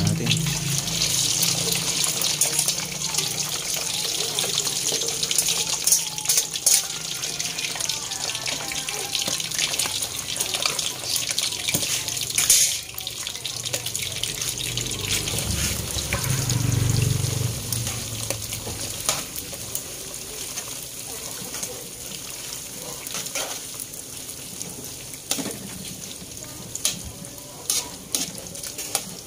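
Boiled isaw (intestines) deep-frying in hot oil in a wok. It makes a steady hissing sizzle with scattered pops and crackles, strongest just after the isaw goes in and gradually dying down.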